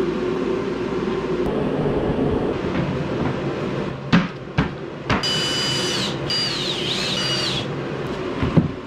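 Plywood panels knocking three times about halfway through, then a cordless drill whining for a couple of seconds, its pitch wavering as the trigger is worked, over a steady low hum.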